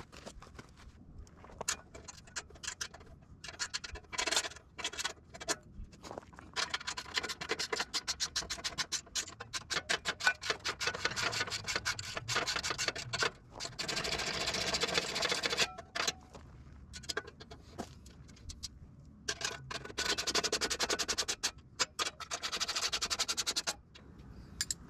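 Socket ratchet clicking rapidly while bolts are tightened on the sawmill's cover latch, in two long runs with scattered knocks of metal parts between.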